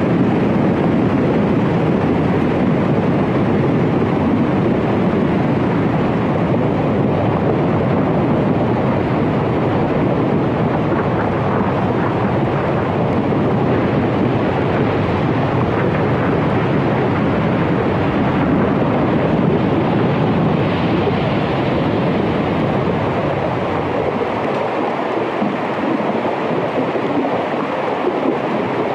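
A loud, steady rushing noise with no distinct tones, easing slightly in the last few seconds.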